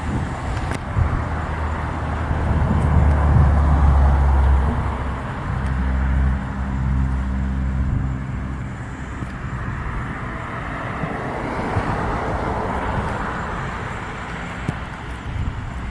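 Outdoor road traffic: a motor vehicle engine runs nearby for the first half, over a steady rush of passing cars that swells again near the end.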